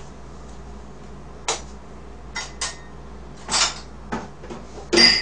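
Scattered knocks and clatter of household objects from offscreen, with a louder rustling burst midway and a sharp ringing clink near the end, over a low steady hum.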